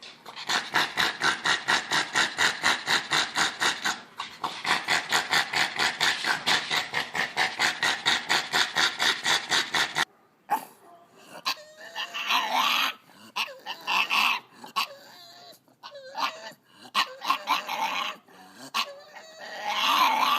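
A dog making rapid, evenly spaced yelps, about four a second, for some ten seconds; after a sudden stop, it gives irregular whines and howls that slide up and down in pitch.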